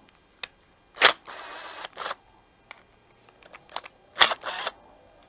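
Cordless driver with a socket bit running in two short bursts, about a second in and about four seconds in, backing screws out of a plastic carburetor cover, with a few clicks of handling between.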